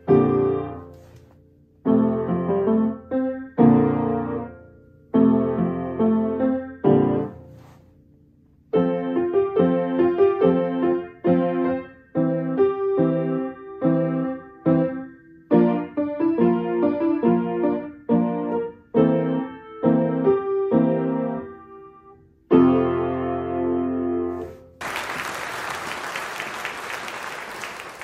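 Grand piano played solo: chords struck with short pauses between them, then a longer unbroken passage, ending on a final chord that is left to ring. About 25 seconds in the playing stops and applause breaks out for the last few seconds.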